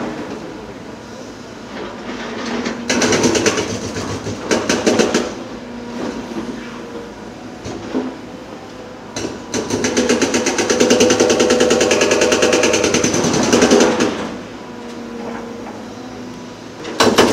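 Heavy diesel construction machinery running, with two long stretches of rapid, evenly repeated clattering impacts: about three seconds in for a couple of seconds, then again for about four seconds in the second half.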